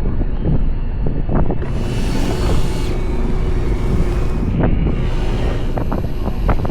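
Fishing boat's engine running with wind buffeting the microphone, a gust of hiss about two seconds in, and scattered knocks.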